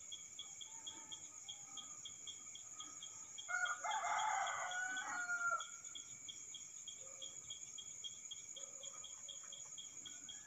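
Crickets chirping steadily at about four chirps a second over a continuous high insect trill. Near the middle a single louder, drawn-out pitched call sounds for about two seconds.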